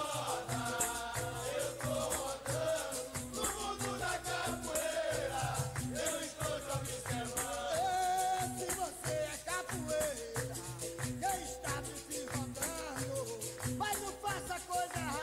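Capoeira music: berimbau playing a steady rhythm with a caxixi rattle shaking on the beat, and voices singing over it.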